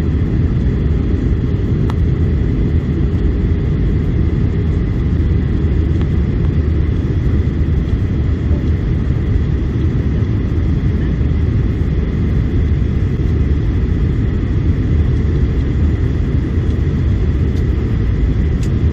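Steady low rumble of engine and airflow noise inside the cabin of a Boeing 737-800 in flight.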